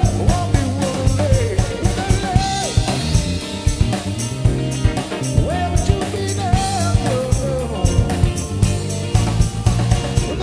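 Live band music: a drum kit keeps a steady, driving beat under electric keyboards, with a lead melody that slides and bends in pitch.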